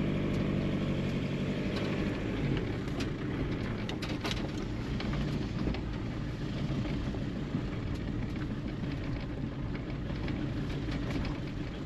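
Van engine running steadily as the van drives slowly, with road noise and a few light clicks.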